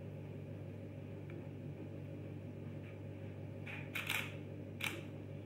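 Nikon D610 DSLR taking a picture: sharp mechanical clacks of the shutter and mirror, a quick double clack about four seconds in and one more under a second later, over a steady low hum.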